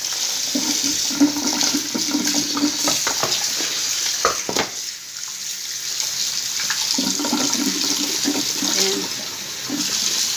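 Kitchen tap running onto parboiled beef pieces in a steel pot in the sink, the water splashing steadily as they are rinsed by hand, with a few short knocks. The rinse washes off the scum left from the first boil.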